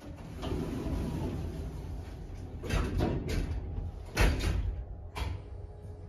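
Schindler 3300 elevator's automatic sliding doors in motion, a steady low rumble with several knocks; the loudest knock comes about four seconds in.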